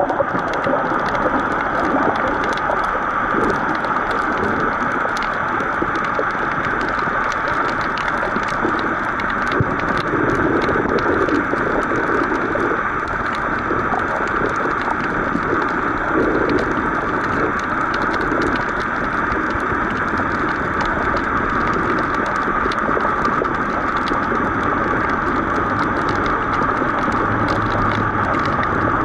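Underwater ambience heard through a waterproof compact camera's microphone: a steady hiss with continuous fine crackling.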